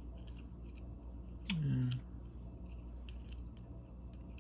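Steel pick tip tapping and scraping inside the empty steel head of a vintage Williams NM-51 quarter-inch ratchet, a scatter of small light metallic clicks over a steady low hum. About a second and a half in, a man's voice makes one short sound.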